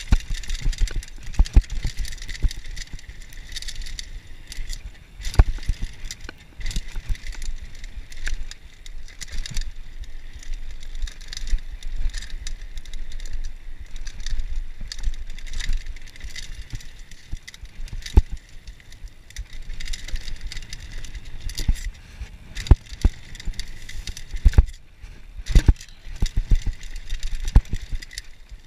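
Mountain bike descending a rough dirt trail: a steady rolling hiss of tyres and air, broken by frequent irregular knocks and rattles of the frame, chain and suspension over bumps, with a few harder jolts in the second half.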